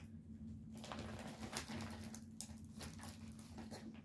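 Faint clicks and rustles of small makeup packaging being handled, over a steady low hum.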